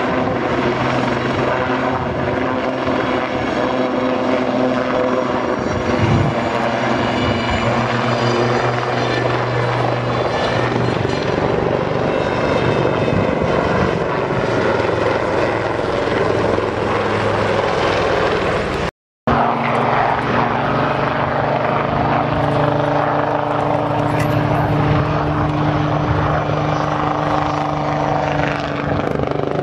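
Pair of display helicopters flying overhead: a continuous rotor and turbine drone with steady low tones and higher tones that slowly slide in pitch as the aircraft move. The sound cuts out completely for a moment about two-thirds of the way through.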